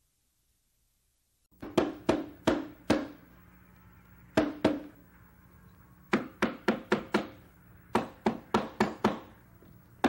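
Hammer driving nails into a small wooden birdhouse. After about a second and a half of silence, sharp knocks come in quick runs of two to five, with short pauses between the runs.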